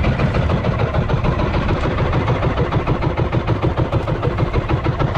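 Small outrigger fishing boat's engine running steadily at trolling speed, a rapid even chugging that holds the same pace throughout.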